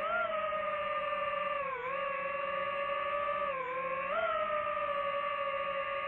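DJI FPV drone's motors and propellers whining steadily, the pitch dipping briefly twice, about two and three and a half seconds in, and climbing back as the throttle changes through the turns.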